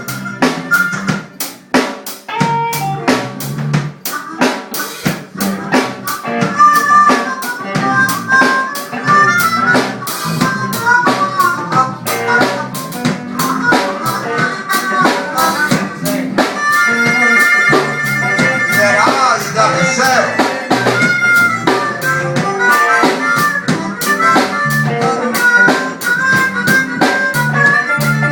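Live band playing an instrumental passage: a bending lead melody over a steady drum-kit beat with rimshots and a bass line, the lead holding long high notes about two-thirds of the way through.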